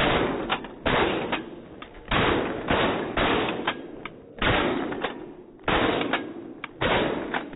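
Shotgun blasts in quick succession: about eight loud shots, each trailing off in echo, with fainter cracks between them.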